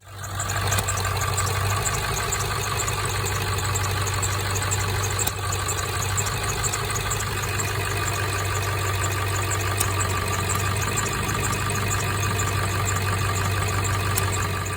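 2000 Ford F-250's 7.3L Powerstroke V8 turbodiesel, a 360,000-mile engine, idling steadily with diesel clatter.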